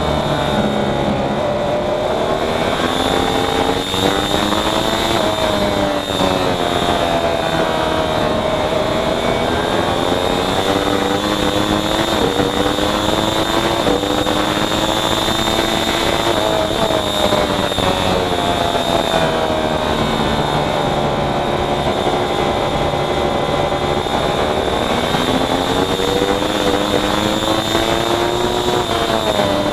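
Race motorcycle engine at race pace, its pitch climbing through the gears with sudden drops at each upshift, then sinking as it slows for corners, over steady wind noise.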